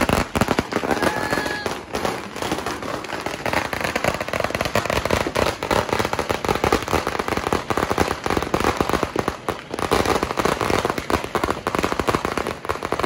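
A long string of firecrackers going off, a rapid, unbroken crackle of bangs.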